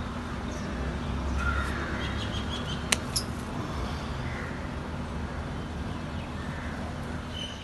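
Hand pruning secateurs snipping twice in quick succession about three seconds in, cutting a drumstick pod from a moringa tree. Birds call faintly over a steady low background hum.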